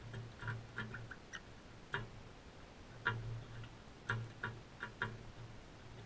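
Crimson rosellas pecking and cracking seed on a feeder tray: irregular sharp clicks and taps, a few a second, some with a dull knock on the tray beneath.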